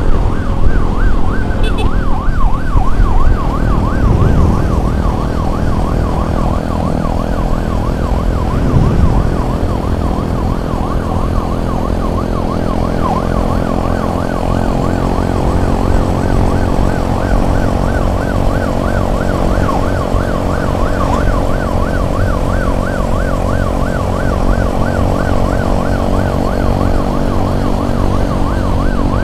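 Emergency siren on the move, yelping up and down rapidly and without a break, over the steady drone of a running vehicle engine.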